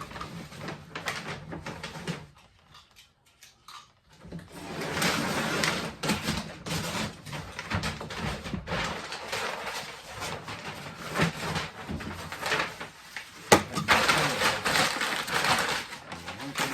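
Packing tape being pulled off a roll and worked onto a cardboard shipping box: spells of rustling and scraping, with a short pause early on and a sharp click about two-thirds of the way in.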